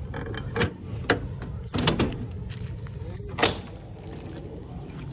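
Four or five sharp knocks and clunks of objects being handled, over a steady low rumble.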